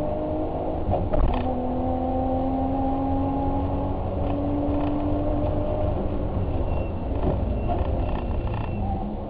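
A car driving: a steady low drone with a few sustained tones that shift in pitch now and then, and occasional knocks and creaks, the loudest knock about a second in.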